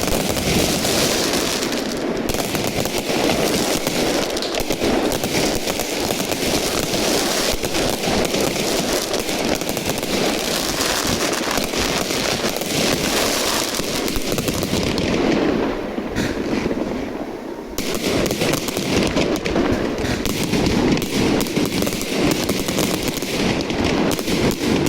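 Fireworks show: a dense, continuous barrage of rapid bangs and crackling shells. The barrage thins briefly about two-thirds of the way through, then builds back up.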